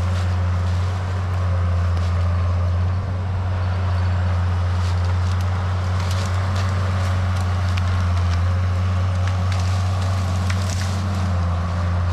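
Case 850K crawler bulldozer's diesel engine running at a steady drone, with scattered crackles and snaps of brush and branches breaking.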